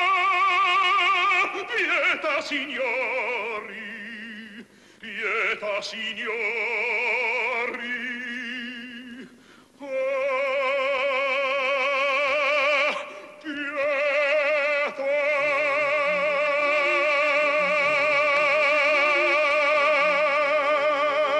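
Film score with a wordless operatic-style voice singing long notes with wide vibrato. The notes change through the first half, then one note is held, and low accompanying notes come in about two-thirds of the way through.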